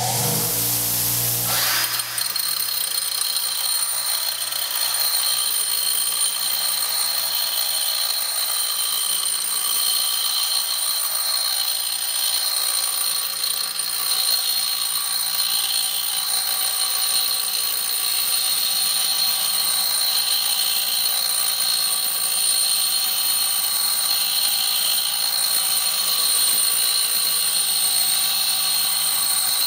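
Bench grinder running with a coarse 36-grit wheel while a steel hex screwdriver bit, spun in a cordless drill, is ground against it, throwing sparks. The grinding swells and fades every couple of seconds as the bit is moved back and forth along the wheel, over a steady motor whine.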